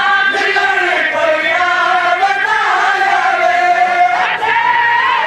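Male mourners chanting a Seraiki noha together, a lament sung in long drawn-out notes, one held for a couple of seconds before the pitch rises near the end.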